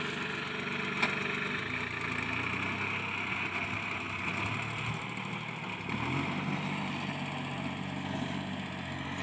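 Mini tractor's engine running as it drives down a narrow dirt path and turns off into a field, its pitch shifting around two seconds in and rising briefly about six seconds in.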